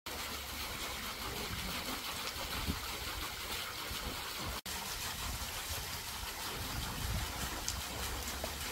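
Steady outdoor rushing noise with an uneven low rumble of wind buffeting the microphone, broken by two brief dropouts where the footage is cut.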